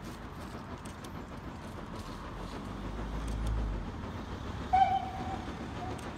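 Distant LMS Fowler 3F 'Jinty' 0-6-0 tank engine 47406 working a train, heard as a low steady rumble that swells a little in the middle. About three-quarters of the way through, a short whistle blast of about half a second rings out, followed by a fainter brief toot.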